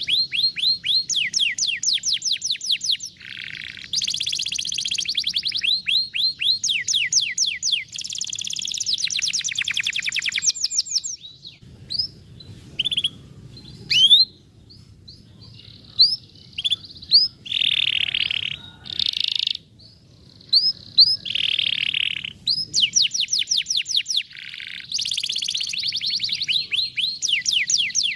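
Canary singing: fast trills of repeated downward-sweeping whistled notes, broken in the middle by a stretch of scattered single chirps and a few short buzzy bursts before the fast trills resume.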